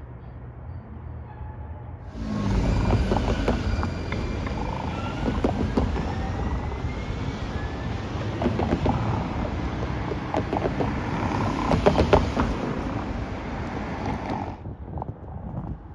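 Light-rail streetcar pulling away along street track: a rising electric motor whine as it accelerates, with sharp wheel clicks and knocks from the rails over a steady rumbling noise. It starts abruptly about two seconds in and cuts off shortly before the end.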